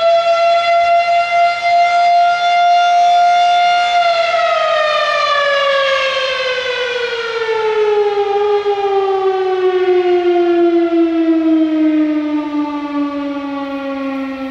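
Volunteer fire department's outdoor siren sounding very loud, calling volunteer firefighters to the station. It holds a steady high pitch, then winds down from about four seconds in with a long, slow fall in pitch.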